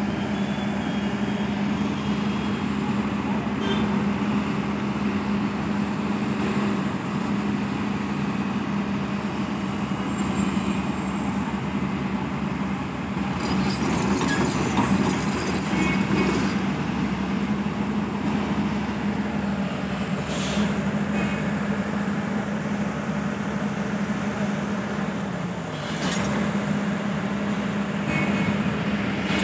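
Diesel engines of heavy construction machinery running steadily, with a strong constant hum. The hum dips briefly about 26 seconds in, and a few short sharp sounds come around the middle and near the end.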